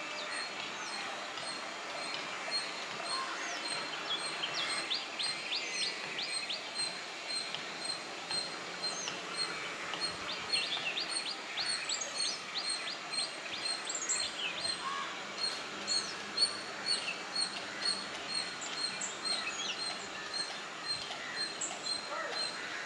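Several birds chirping and calling over a steady background hiss. Two rapid runs of short, sharp falling chirps come about 4 to 6 seconds in and again about 10 to 13 seconds in, with scattered higher calls between.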